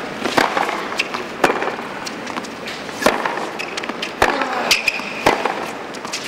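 Tennis rally heard at court level: sharp pops of a racket hitting the ball about every second to second and a half, with softer thuds of the ball bouncing in between. A player grunts on one shot a little after four seconds in.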